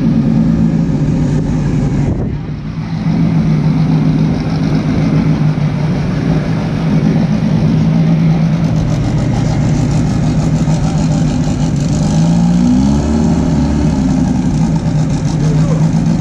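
Turbocharged air-cooled Volkswagen Fusca (Beetle) engine running steadily at low revs as the car rolls forward, with a brief rise in revs about twelve seconds in.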